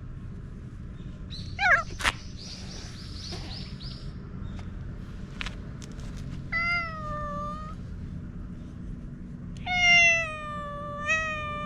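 Cat meowing. A short wavering call comes about two seconds in, a drawn-out meow comes midway, and a longer, slowly falling meow comes near the end.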